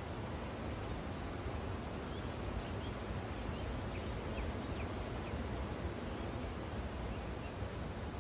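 Steady low rushing outdoor noise, with a few faint short high chirps between about two and four and a half seconds in.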